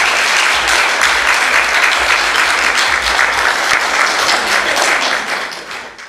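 Audience applauding, a steady wash of clapping that fades out near the end.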